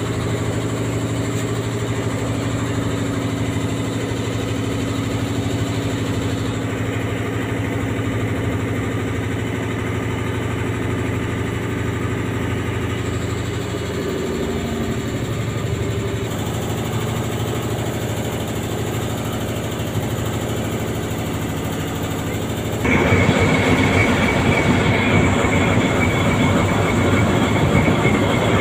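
Ship's diesel engine running with a steady low drone. Its pitch shifts slightly about halfway through, and about three quarters of the way through it turns suddenly louder and rougher.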